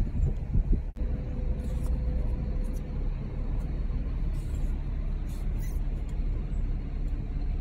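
Steady low rumble of vehicle traffic, with a few brief knocks in the first second.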